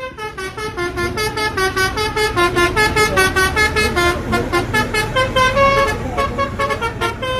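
Bus's Basuri-style multi-tone melodic horn playing a quick tune of stepped notes, about three or four a second, over the low rumble of the bus and traffic.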